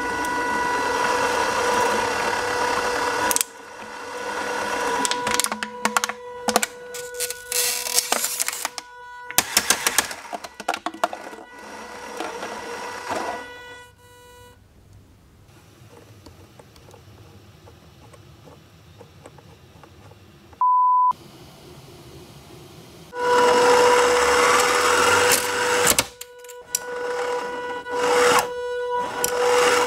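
3D-printed shredder running under power: a steady motor whine with cracking and snapping as material goes through the cutters. It stops for several seconds, a single short electronic beep sounds, and then the shredder starts up again.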